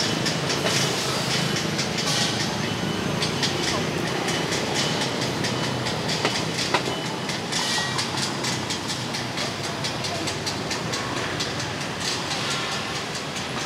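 Busy city street ambience: a steady hum of motorbike traffic with rapid, irregular clicking and clatter over it, thickest in the first half and again near the end.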